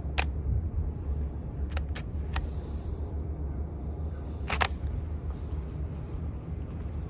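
Canon EOS 60D DSLR shutter firing several times: sharp clicks just after the start, a close pair and a single near two seconds, and a close pair about four and a half seconds in, over a steady low background rumble.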